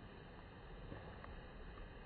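Faint, steady outdoor background noise with a low rumble and a couple of faint ticks.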